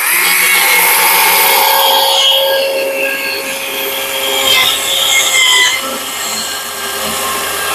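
Stihl MSA 140 battery chainsaw with a narrow carving bar running and cutting into a spruce slab: a steady motor whine with the chain rasping through the wood, a little quieter after a couple of seconds.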